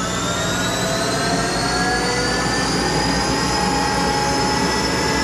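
Monarch 10EE lathe running up in speed on its thyratron vacuum-tube variable-speed drive: a steady machine whine from the spindle and drive rising gradually in pitch, levelling off near the end as it nears top speed.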